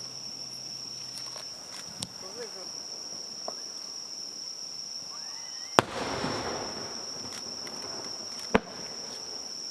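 Firework shells bursting overhead: a light pop about two seconds in, a loud bang about six seconds in followed by a second of crackling, and another sharp bang near the end. A steady high insect trill and faint talk from onlookers run underneath.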